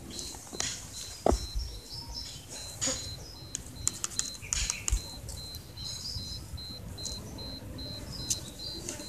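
A high, even chirping that pulses about three times a second, like an insect, goes on without a break. Light scrapes and taps of a twig dragged over concrete steps come and go over it.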